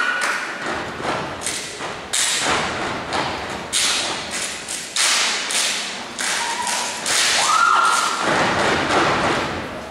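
Step-team routine: a sequence of sharp stomps and claps by a group of steppers on a wooden stage, echoing in the hall.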